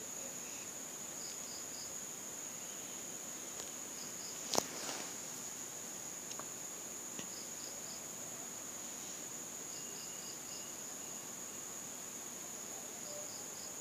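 Faint insect chirping in short groups of three or four chirps every couple of seconds, over a steady high-pitched whine. One sharp tap comes about four and a half seconds in.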